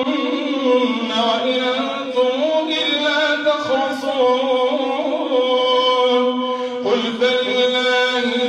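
A man's voice chanting Quran recitation in a slow, melodic style, holding long notes that bend gently in pitch, amplified through a microphone.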